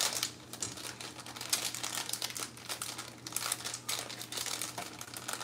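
Butter and olive oil sizzling in a frying pan on medium-high heat, a steady dense crackle of small pops.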